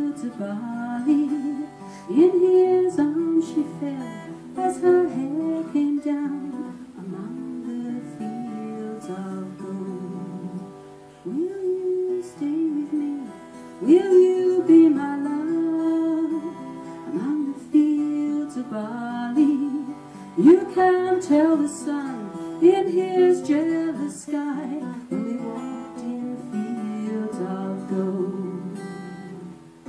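A woman singing a slow song to her own acoustic guitar accompaniment, one voice over plucked and strummed chords.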